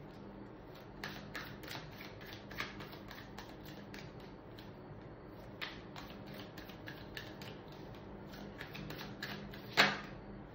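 Tarot cards being handled and shuffled: scattered light clicks and taps at an irregular pace, with one louder sharp snap near the end, over a faint steady hum.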